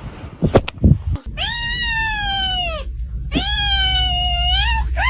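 Domestic cat meowing: two long, drawn-out meows, each falling in pitch at its end, then a short rising meow at the very end. A few soft knocks come in the first second.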